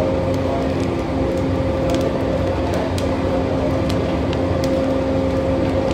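Wood fire burning hard in a brick-lined tandoor pit as it is stirred with an iron rod, with scattered crackles and pops, over a steady low hum.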